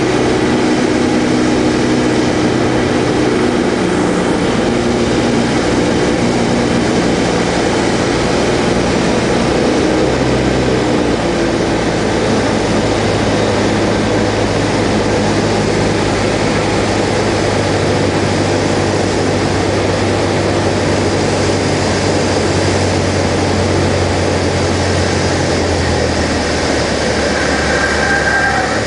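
Cessna 172's piston engine and propeller droning inside the cockpit over a steady rush of airflow, the engine note stepping lower a few times as power is reduced on final approach to landing.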